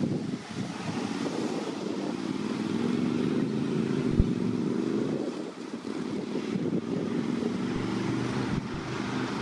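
Road vehicle engine running close by, its pitch shifting as it moves, over general traffic noise. A single sharp click about four seconds in.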